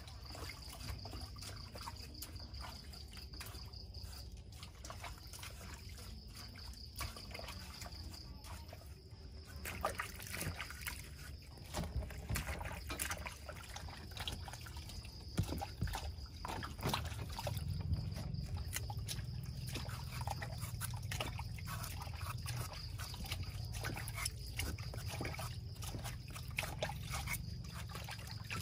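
Hands washing leafy vegetables in a plastic basin of water: irregular splashes, sloshing and drips.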